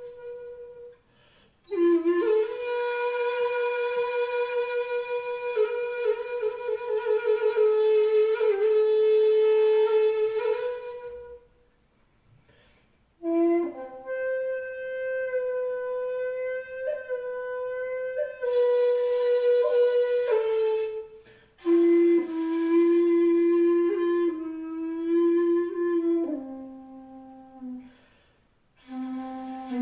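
Wide-bore jinashi shakuhachi, 2.1 shaku long and pitched in B, playing long held notes in breath-length phrases with short pauses between them. Some notes are shaken in a slow vibrato. The last phrase steps down to the flute's low notes.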